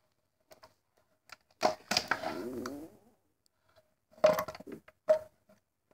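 Handling noise of a motorized-bicycle carburetor being fitted back together: scattered clicks and knocks of its metal parts, with a short scraping rasp about two seconds in and a few louder knocks near the end.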